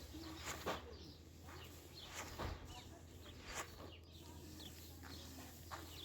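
Small birds chirping now and then, with a few sharp knocks or rustles scattered through and a steady low hum underneath.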